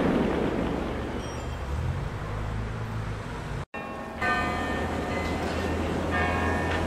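A low, steady rumble that cuts off abruptly, followed by church bells ringing with several strikes that ring on and fade.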